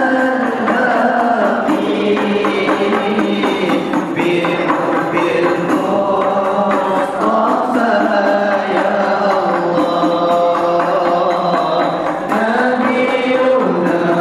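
Arabic devotional qasidah sung by a chorus of boys and young men in unison, led by a soloist on a microphone, in a steady chant-like melody with long held notes.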